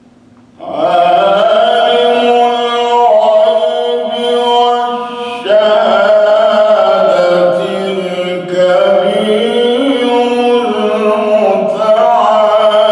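A man's solo voice reciting the Quran in melodic tajweed style, holding long drawn-out notes that bend slowly in pitch. The voice comes in about half a second in after a short pause.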